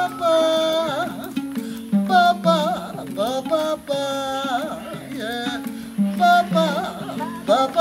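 A woman sings a sliding, wavering melody while plucking a repeating low figure on a gourd-resonated harp.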